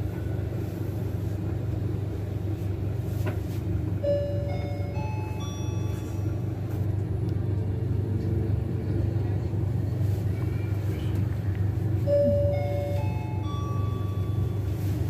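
2004 Hyundai STVF elevator chime sounding twice, each time a rising four-note melody lasting about two seconds, the first about four seconds in and the second about eight seconds later. Under it runs the steady low hum of the moving car.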